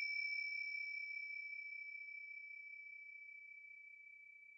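The high ringing tone of a single struck chime fading slowly away.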